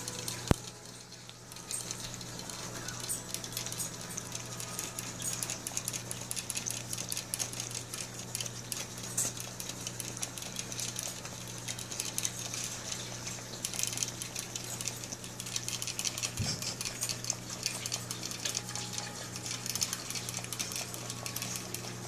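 Rapid metallic ticking from a cage water bottle's metal sipper tube as a kinkajou licks and drinks from it, over a steady low hum. One sharp click about half a second in.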